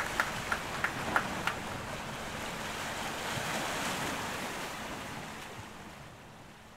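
A steady rushing noise that swells three to four seconds in and then fades away, with a few scattered sharp claps in the first second and a half.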